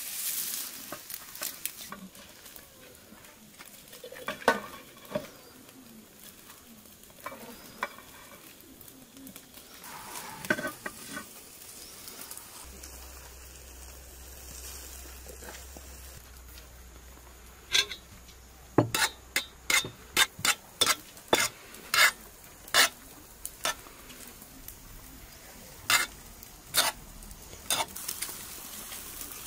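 Food sizzling on skewers over hot charcoal, then a run of about a dozen sharp clinks of utensils against dishes and a pot over the last ten seconds.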